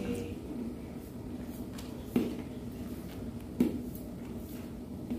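Metal spatula stirring coconut-milk rendang gravy in a large wok, with two sharp clinks of the spatula against the pan about two and three and a half seconds in, over a steady low background hum.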